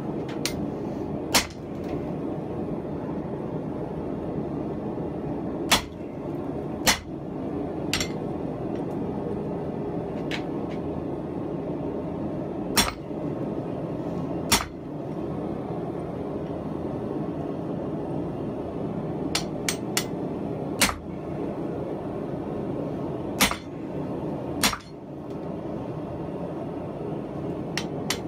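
A forge running with a steady roar, with scattered sharp metal strikes from blacksmith work on the anvil: about nine spaced clanks a second or more apart, not a continuous forging rhythm.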